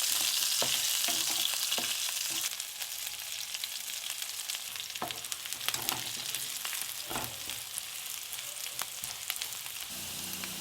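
Onions and split green chilies sizzling in hot oil as they are stir-fried in a pan, with a spatula scraping and tapping against the pan. The sizzle is louder for the first two seconds or so, then settles lower.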